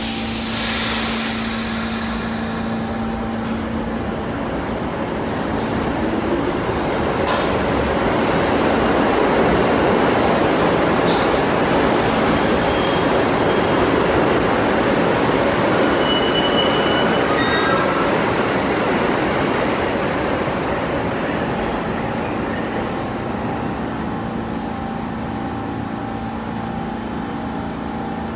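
New York City Subway R46 train running past, growing louder to a peak about a third of the way in and then easing off, with brief high-pitched wheel squeals a little past the middle.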